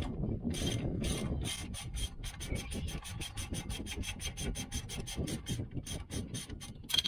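Socket ratchet clicking steadily, about five clicks a second, as an 18 mm brake caliper bolt is backed out of the spindle, with a louder click near the end.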